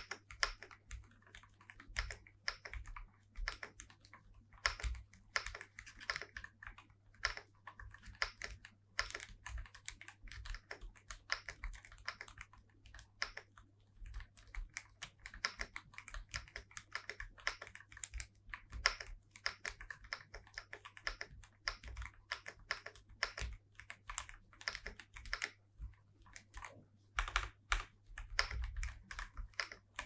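Steady fast typing on a Feker Alice 80 ergonomic mechanical keyboard: a dense run of key clicks and clacks from hot-swap switches, with a few short pauses.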